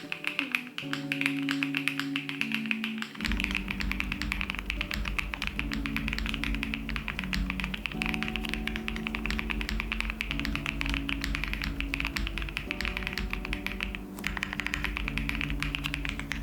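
Typing on a Luminkey80 80% mechanical keyboard fitted with Iced Latte switches: a fast, continuous stream of keystroke clacks. Background music plays under it, and a bass line comes in about three seconds in.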